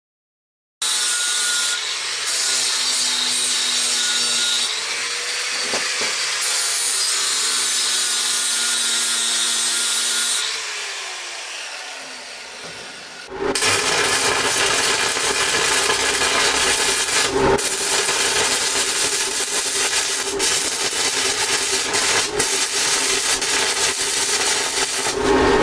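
A power tool cutting steel square tubing: a steady motor tone under a loud grinding hiss, fading out about twelve seconds in. Then electric arc welding on the tubing, a steady sizzle with frequent sharp crackles.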